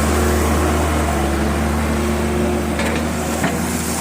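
An engine or motor running steadily with a low, even hum, and a single light knock about three and a half seconds in.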